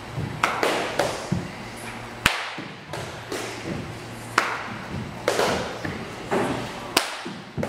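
Kicks and strikes slapping a handheld paddle target, about a dozen sharp hits at uneven intervals, with duller thumps between them.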